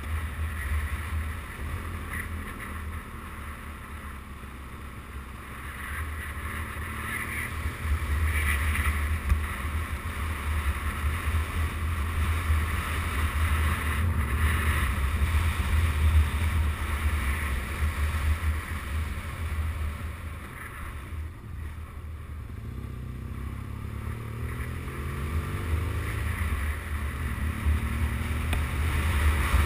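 Wind buffeting the microphone of a camera mounted on an adventure motorcycle, over the engine and tyres on a gravel road. The sound eases off about two-thirds of the way through, then the engine note rises as the bike accelerates near the end.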